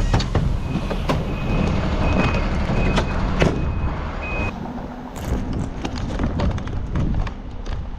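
Fire truck's engine running, with a short high warning beep repeating about twice a second for the first four seconds or so, and a few scattered knocks.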